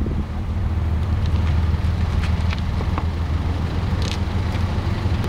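A steady low engine drone, with faint scattered clicks over it.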